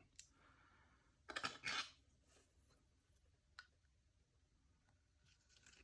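Faint small clicks and rattles of a disassembled cam lock's parts being handled, with a short cluster of clicks between one and two seconds in and a few single light ticks after; otherwise near silence.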